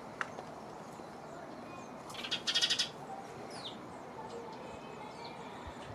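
Wild birds calling outdoors: a short, loud, rapid rattling chatter about two seconds in, then a brief falling whistle. A single click comes just after the start.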